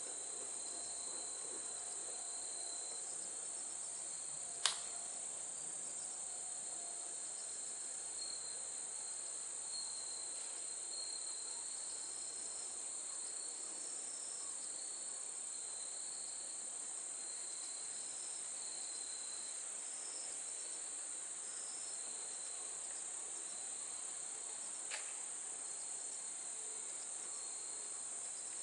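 Steady high-pitched chorus of insects chirring in the fields. There is a sharp click about five seconds in and a fainter one near the end.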